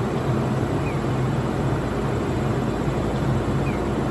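Steady low mechanical hum over a constant background rumble, unchanging throughout. A faint short falling chirp is heard about a second in and again near the end.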